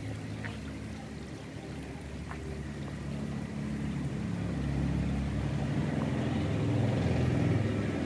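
Water trickling and splashing down a stacked-stone fountain into its basin, under a steady low rumble that grows a little louder near the end.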